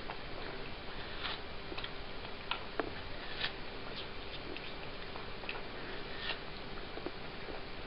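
A cat biting and chewing a wedge of watermelon: irregular small clicks of its teeth in the fruit, about one or two a second, over a steady background hiss.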